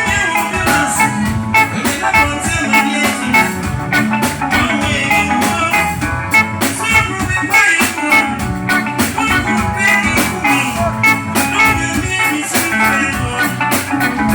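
Live band music with guitar, drums and a steady beat.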